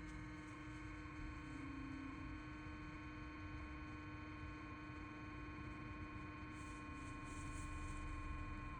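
Steady humming groan from the Volvo C40's dashboard air-conditioning shut-off valve for the water-cooled condenser, heard after the car has sat idle overnight. The uploader diagnosed it as a faulty valve. The tone holds steady apart from a brief dip in pitch about a second and a half in.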